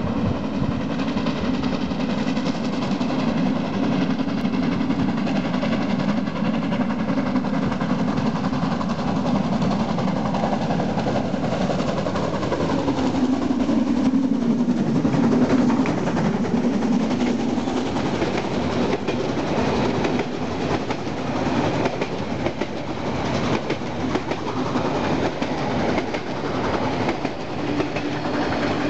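Harz narrow-gauge steam train, with 2-10-2 tank locomotive 99 7241-5 pulling coaches, approaching and passing at close range. It is loudest as the locomotive goes by about halfway through, and the pitch drops as it passes. The passenger coaches then rattle past with a clatter of wheels over the rail joints.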